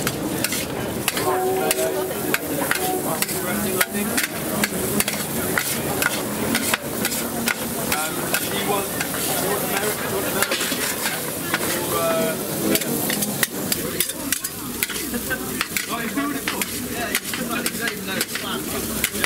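Tartiflette sizzling in a pan while a utensil stirs and scrapes through it, with frequent sharp clicks of metal against the pan.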